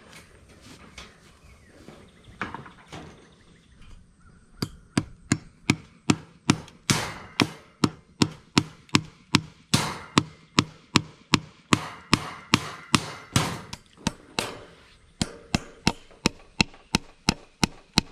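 Hammer driving fence staples into a wooden fence post to fasten a welded-wire panel: sharp, evenly paced strikes, about three a second, starting about four seconds in.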